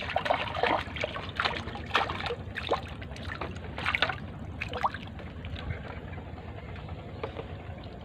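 Water splashing and trickling, with irregular splashes through the first five seconds, then a steadier trickle.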